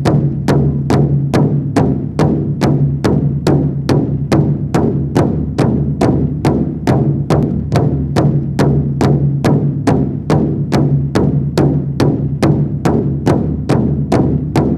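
Large rawhide powwow drum struck in unison by several drummers in a steady, even beat of about two to three strokes a second, over a steady low ring.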